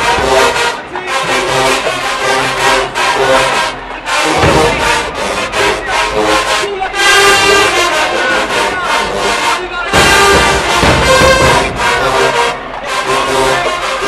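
HBCU marching band's brass section, sousaphones included, playing loudly over a steady drumline beat. The low brass and bass drop out and come back in twice.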